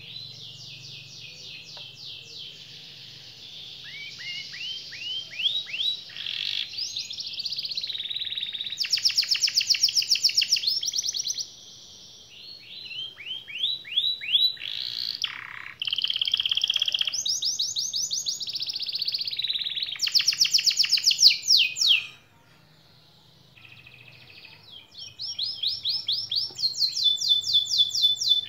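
Domestic canary singing a long rolling song of fast trills and rapid rising whistled notes, broken by two brief pauses.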